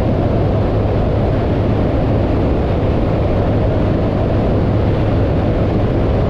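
Loud, steady rushing noise of a BushCat light-sport aircraft in flight: engine and airflow picked up by an exposed microphone, with no clear engine tone.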